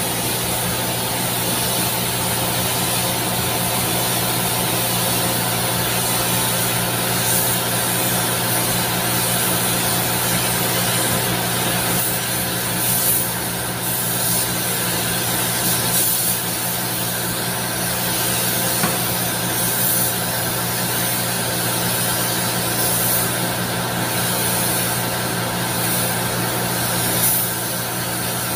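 Compressed-air paint spray gun hissing in repeated passes as paint is sprayed onto a car's front bumper, over the steady hum of the paint booth's machinery.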